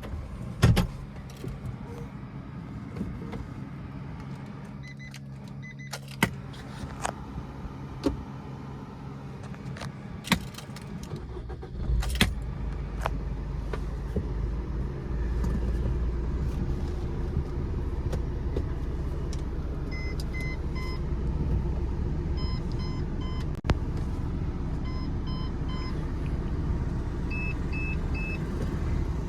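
A few clicks and knocks, then a Maruti Vitara Brezza's diesel engine starts about twelve seconds in and idles steadily. From about twenty seconds in, the car's electronic beeper sounds in repeated short groups of beeps.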